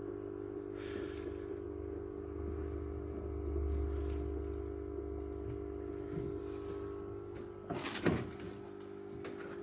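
Steady hum of a running aquarium filter with several close, even tones, and a short clatter of knocks about eight seconds in.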